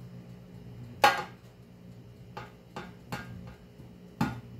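Metal spoons clinking against each other and a metal baking pan while dough is portioned: a sharp clink about a second in, then four lighter taps.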